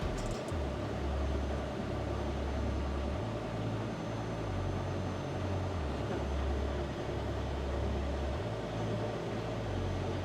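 Steady low engine rumble, like idling diesel trucks nearby, with a deep drone that shifts a little in pitch every second or two.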